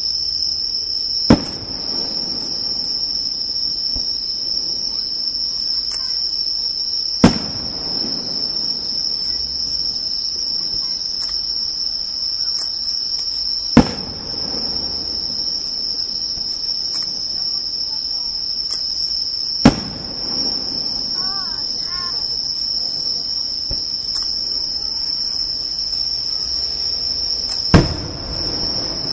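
Five aerial firework shells bursting with sharp bangs about six seconds apart, each followed by a rolling echo, over the steady high chirring of crickets.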